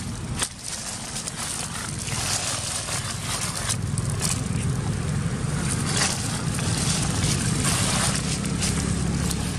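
Dry fallen leaves crackling and rustling under the feet of a walking macaque, over a steady low rumble that grows louder about two seconds in.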